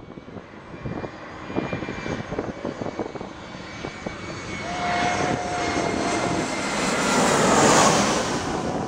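US Airways twin-engine jet airliner on final approach, passing low overhead: its jet engine noise swells steadily and is loudest near the end as it goes over. A whining engine tone drops slightly in pitch as it passes.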